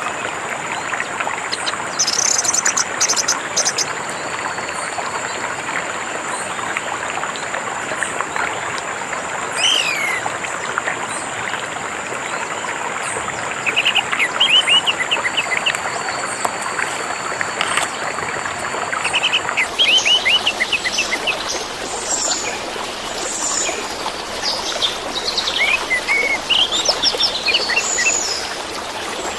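Running water trickling steadily under the song of an orange-headed thrush: scattered quick whistled phrases and chirps, busier in the last third. A steady high thin tone sits under the first two-thirds and stops about twenty seconds in.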